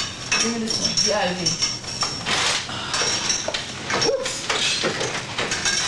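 Metal clattering and clinking of hospital bed frames, side rails and equipment as a patient is moved between beds, with short stretches of voices in between.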